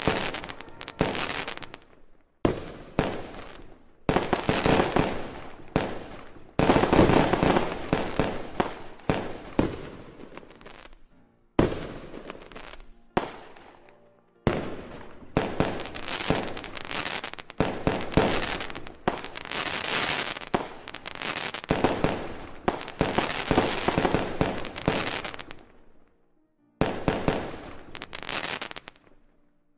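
Aerial fireworks shells bursting in rapid succession: sharp bangs, each trailing off, overlapping with crackling. The barrage pauses briefly a few times, about a third of the way in, around halfway and near the end.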